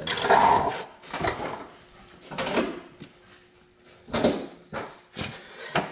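Drawer of a metal rolling tool cart opening and closing and wrenches clanking as a 15 mm wrench is taken out: a string of separate clanks and rattles, the loudest about four seconds in.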